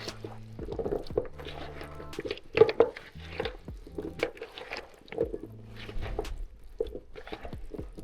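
Chicken pieces and potatoes being mixed through a wet, oily marinade, with irregular squelching and sloshing.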